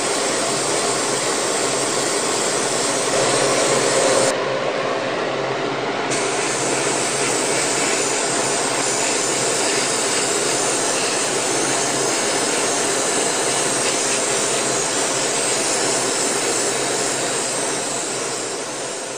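Airbrush spraying paint in a spray booth, with the booth's exhaust fan running: a steady rushing hiss with a faint low hum beneath it. It fades out near the end.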